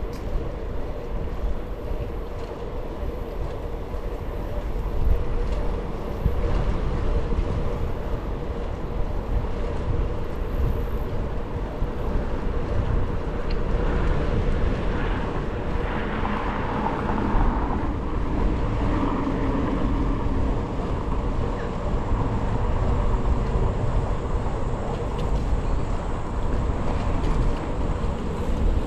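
Wind rushing over the microphone during a bicycle ride: a steady low rumbling noise that swells a little about halfway through.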